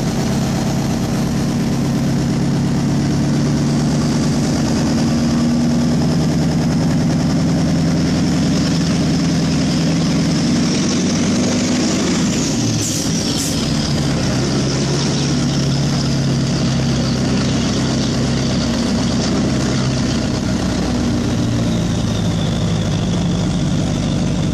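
Scania 142's 14-litre V8 diesel engine running steadily, heard from inside the cab. About halfway through, a high whistle rises and falls, the engine note dips briefly, and there are two sharp clicks.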